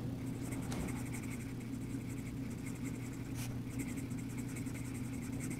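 Yellow colouring pencil scratching lightly over drawing paper in small circular strokes, filling in a coloured area.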